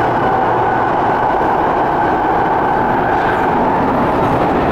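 Cab-interior noise of a C751B metro train running steadily through an underground tunnel: a continuous loud rumble of wheels on rail with a faint steady whine from the traction motors.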